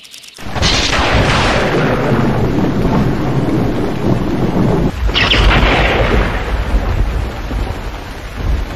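Thunderstorm: thunder rumbling over rain. A crack of thunder comes about half a second in and another about five seconds in, each rolling away into a long rumble.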